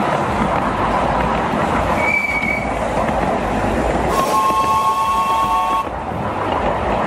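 7¼-inch gauge miniature railway train running along the track with a steady rumble. A short high pip comes about two seconds in, then the locomotive's whistle sounds a chord of several notes for about a second and a half.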